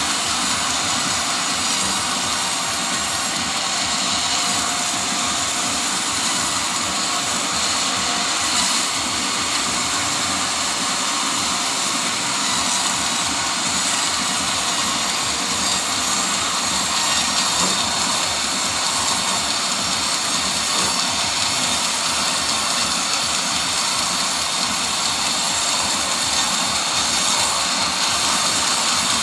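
Sawmill machinery running steadily, a loud even mechanical noise strongest in the high range, with no breaks.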